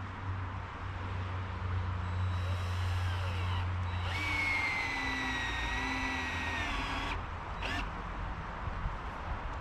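Chainsaw engine running, with a high whine over it from about two seconds in that cuts off sharply about seven seconds in.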